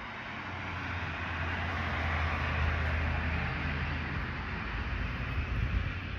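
A vehicle passing by: a broad rushing noise over a low engine hum that swells to a peak about halfway through and then fades.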